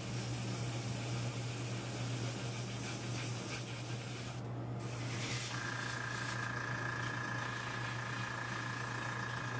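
Airbrush spraying paint with a steady hiss that stops briefly about halfway through, then resumes. A steady low hum runs underneath, and a steady higher whine joins a little past the middle.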